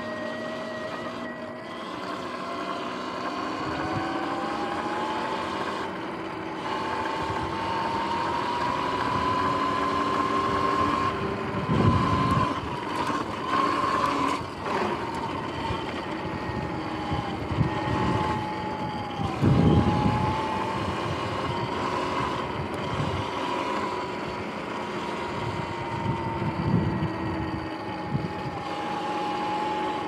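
Sur-Ron X electric dirt bike's motor and chain drive whining while riding, the pitch rising steadily through the first ten seconds or so as it speeds up, then dropping and wavering lower. Two loud gusts of wind rumble on the microphone, about twelve and twenty seconds in.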